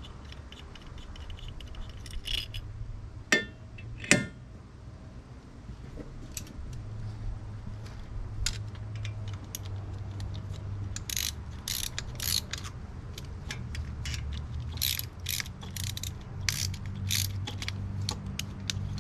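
Hand ratchet on a long extension clicking in quick strokes as a spark plug is turned. Two sharp metallic clacks come about three and four seconds in, and the ratcheting runs in clusters of quick clicks through the second half.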